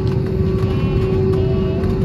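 Airbus A320 cabin noise while taxiing: a steady low rumble from the engines at taxi power and the rolling aircraft, with a steady hum over it. Faint voices of other passengers murmur in the background.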